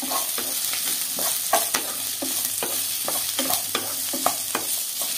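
Chopped beetroot, onion and garlic sautéing in groundnut oil in a pan, with a steady sizzle. The pan is being stirred, the utensil scraping about three times a second.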